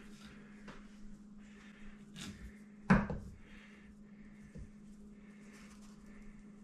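A metal ravioli mold knocks down onto the counter once, sharply, about three seconds in, amid soft rustling of pasta dough being handled. A steady low hum runs underneath.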